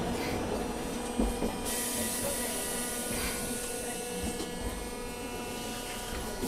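Hiroshima Electric Railway 800 series tram, an armature-chopper-controlled streetcar, running: a steady whine of several constant tones over wheel and rail rumble. A high hiss joins in about two seconds in, and the low rumble eases toward the end.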